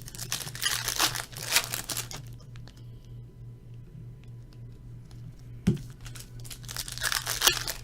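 Plastic trading-card pack wrappers crinkling and being torn open, in a dense crackle for the first two seconds and again near the end, with a single soft knock on the table in the quieter middle. A low steady hum runs underneath.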